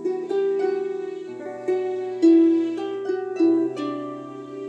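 Harp played by hand: a slow melody of plucked notes, each left to ring on, over low bass notes that sound together with it.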